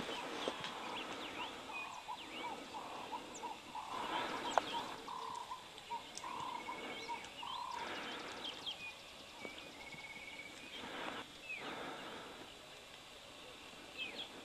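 Wild birds calling. One bird repeats a short note about twice a second for roughly the first half, the notes growing longer toward the end of the run, while other birds chirp and trill higher up. A few brief rustling noises come through.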